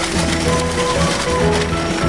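Background music: a tune of short held notes stepping up and down over a bass line.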